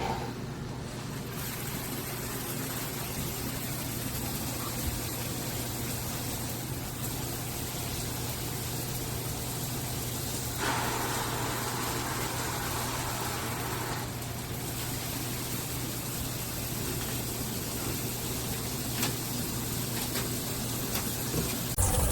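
Water spraying steadily from a shower head, a continuous hiss. It turns brighter and louder for about three seconds from about ten seconds in.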